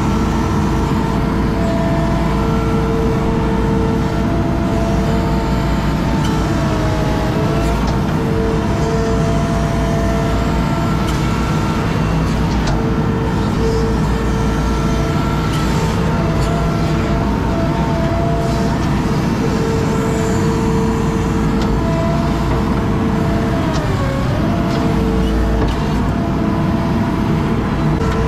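Skid steer running at working revs with a steady whine; the pitch sags briefly twice, about seven seconds in and again near the end, as the machine takes load.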